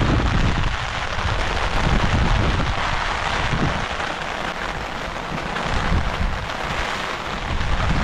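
Heavy rain falling steadily as a dense hiss, with low, gusty wind buffeting on the microphone that eases off in the middle and returns near the end.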